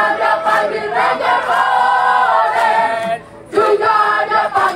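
A mixed group of men and women singing a team cheer song (yel-yel) together, breaking off for a moment about three seconds in and then starting again.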